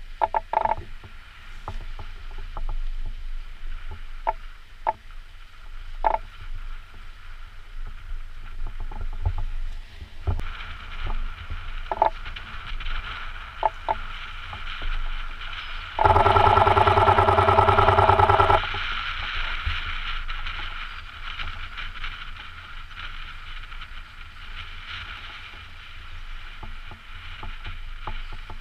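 Small waves lapping and splashing against shoreline rocks, with gulls calling over the water. About halfway through, a loud steady buzz starts and stops abruptly, lasting about two and a half seconds.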